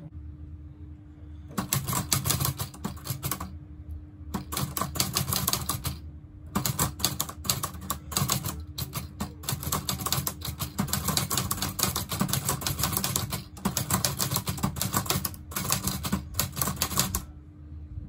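1975 Olivetti Lettera 25 portable manual typewriter, its bottom padded, being typed on: quick runs of key strikes in several bursts with short pauses between them, starting about a second and a half in.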